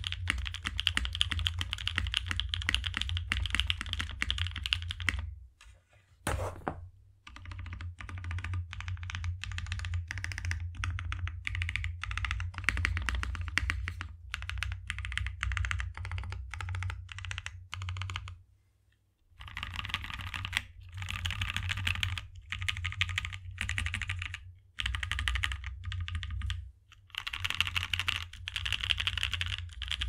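Typing on a Geonworks F1-8X mechanical keyboard, with lubed MilkyTop Creamsicle switches on an aluminium plate in an O-ring gasket mount and GMK Froyo ABS keycaps. It starts with fast, continuous typing and then a short pause about five seconds in. Next come single key presses at about two to three a second, and after another brief pause, bursts of fast typing again to the end.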